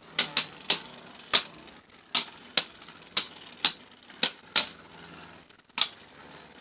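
Two Beyblade Burst tops, Vise Leopard and Revive Phoenix, spinning in a plastic stadium and clashing: about a dozen sharp, irregular plastic clacks, with a short lull about five seconds in.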